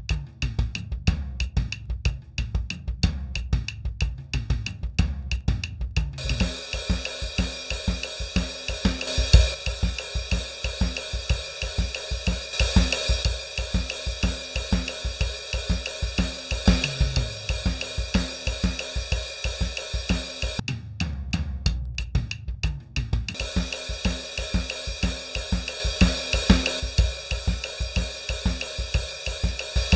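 Programmed drum pattern playing back on an old Roland digital drum unit: at first only kick and low drums, then after about six seconds the full kit comes in with cymbals and hi-hat, which drop out briefly about two-thirds of the way through before the full kit resumes.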